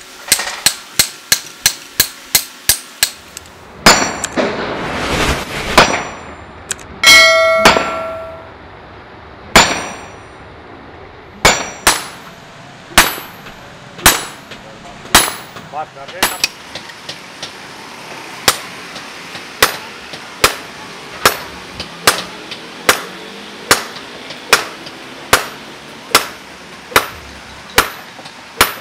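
Hand hammer striking a hot leaf-spring steel cleaver blank on an anvil. It opens with a quick run of blows, about three or four a second, and a ringing metallic clang comes a few seconds later. The rest is a steady beat of single blows, roughly one a second.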